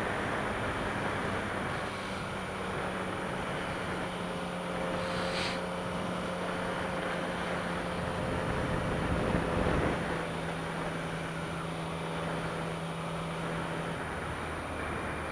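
Motorcycle engine running steadily at cruising speed under heavy wind rush on a helmet-mounted microphone. The engine note holds level, swells briefly, then drops to a lower steady pitch about ten seconds in.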